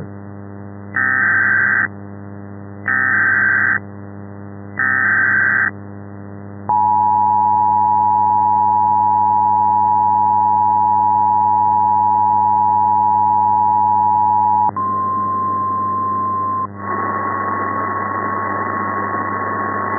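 Emergency Alert System tones: three short bursts of SAME header data, each about a second long, then the two-tone attention signal held steady for about eight seconds. A single higher steady tone follows for about two seconds, then a stretch of hiss with a faint tone, all over a steady low hum.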